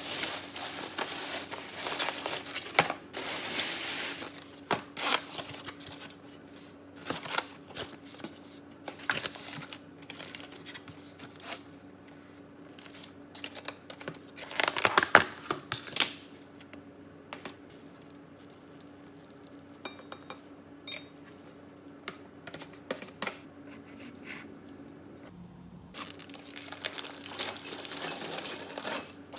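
Packaging being handled close up: crinkling and rustling in several spells, with scattered clicks and taps between them. The loudest spell of crinkling comes about halfway through, over a faint steady hum.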